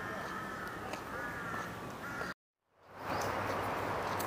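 A crow cawing several times. About halfway through, the sound cuts out for a moment and comes back as a steady outdoor background noise.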